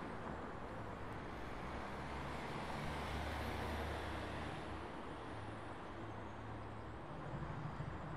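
Motorcycle engine running as the bike approaches, a steady low hum that grows louder and more pulsing near the end.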